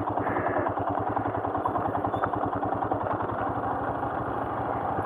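Royal Enfield Himalayan's single-cylinder engine running with a steady, even beat as the loaded bike creeps slowly down a steep descent.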